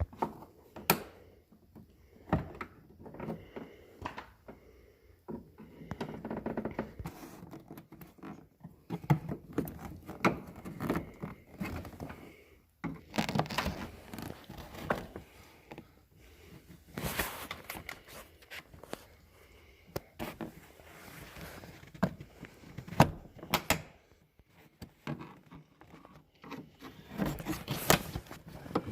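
A tape-wrapped pry bar working a 1999 GMC Sierra's interior door panel loose: irregular knocks, clicks and scraping of plastic and metal, with a few sharp louder knocks.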